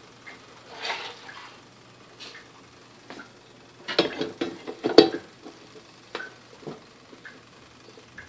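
Metal clinks and knocks of a wire roasting rack holding a whole chicken being set into a vertical rotisserie oven and onto its drip tray. A run of clattering comes about four to five seconds in, and the loudest knock lands at about five seconds.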